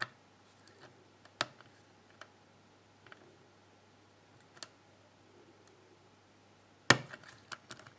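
Faint, scattered clicks of a lock pick and tension wrench working the pins of a pin-tumbler lock cylinder, with a sharper click near the end followed by a quick run of small clicks, which the picker thinks may be a pin setting while other pins drop.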